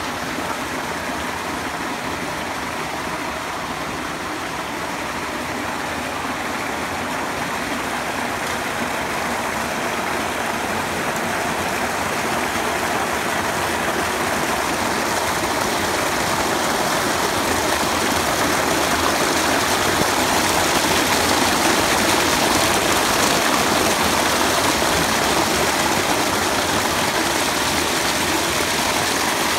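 Small rocky waterfall: water pouring over rocks and splashing into a stream pool with a steady rushing hiss. It grows louder through the first half and stays loud from about twenty seconds in.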